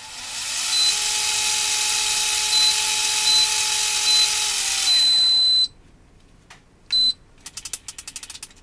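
Daiwa Hyper Tanacom 500F electric fishing reel's motor winding in line with a steady whine while the line counter counts down. The reel sounds short repeated beeps that turn into one long beep as the count nears zero, and the motor winds down and stops about five seconds in. A single beep with a click follows, then a quick run of clicks near the end.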